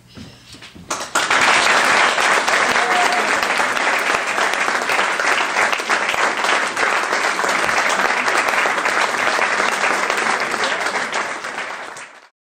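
Audience applauding: dense, steady clapping that starts about a second in and cuts off suddenly near the end.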